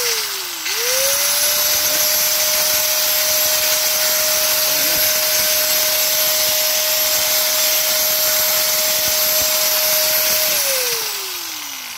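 Electric hand grinder's motor being test-run after a repair. It spins down as it is switched off right at the start, is switched back on and spins up within about a second to a steady high whine, and runs evenly for about ten seconds. Near the end it is switched off and winds down, falling in pitch.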